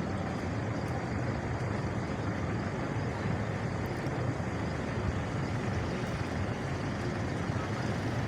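Pakistan Railways passenger express hauled by a GMU-30 diesel-electric locomotive running by: a steady low engine drone under an even rolling noise, unchanging throughout.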